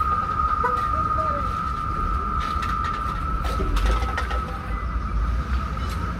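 An aerosol spray-paint can hissing in short bursts, bunched through the middle, over a steady high-pitched whine and a low rumble. A bird calls faintly once or twice early on.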